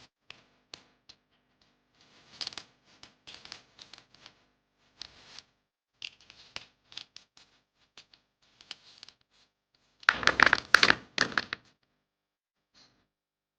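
Hard taps and clicks in irregular runs, with a louder clatter of knocks about ten seconds in that lasts under two seconds.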